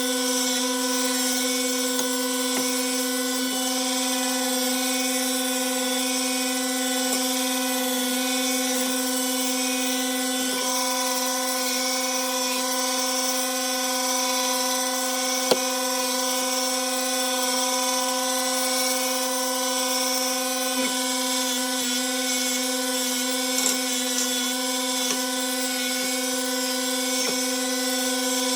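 An electric power tool's motor running at a steady speed, giving an even, unchanging hum, with a few light ticks and knocks as it works the wood.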